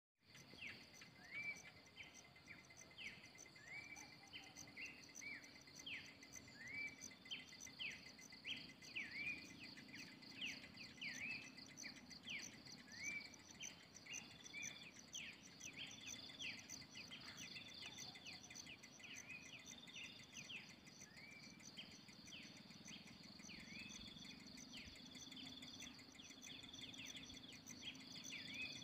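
Faint dawn chorus of birds repeating short whistled notes that sweep up and down, over a steady, pulsing high insect trill. A low steady hum joins a few seconds in.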